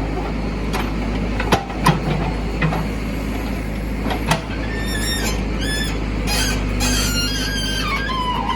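JCB 3DX backhoe loader's diesel engine running steadily while its bucket teeth break up a road surface. There are sharp knocks in the first half, then a run of high-pitched metallic squeals.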